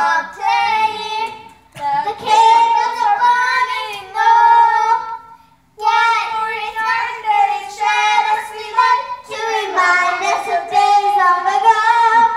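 A young girl singing into a handheld microphone in long, held high notes, with a brief break about five and a half seconds in.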